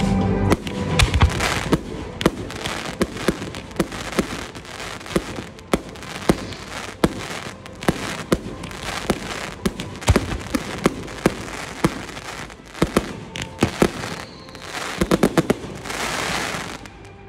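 Fireworks display: aerial shells bursting in a steady series of sharp bangs, with a quick run of bangs near the end followed by a fizzing crackle. Loud music cuts off about half a second in.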